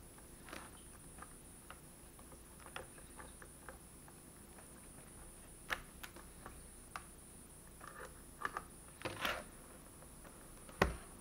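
Scattered light clicks and taps of small laptop parts and a screwdriver being handled during reassembly, with a sharper click about six seconds in, a run of taps around eight to nine seconds, and the loudest knock near the end.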